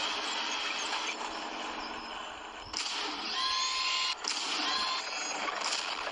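Large remote-control toy tank's electric gear motors whirring, stopping and starting abruptly several times.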